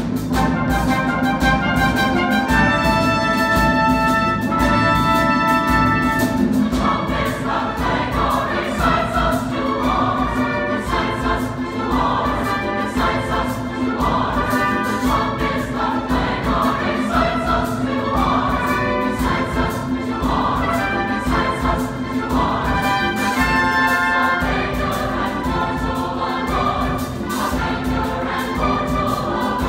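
Large mixed choir singing with a chamber orchestra of strings and brass. Held chords open it, and from about seven seconds in the choir sings in short, regularly repeated phrases.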